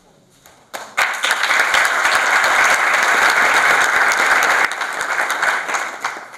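Audience applauding: a few scattered claps at first, full applause from about a second in, then thinning out and fading near the end.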